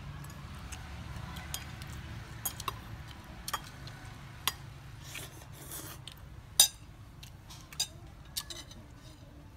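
Metal spoons clinking and scraping against ceramic plates and a soup bowl: a scattered series of sharp clinks, the loudest about two-thirds of the way through, over a faint low hum in the first few seconds.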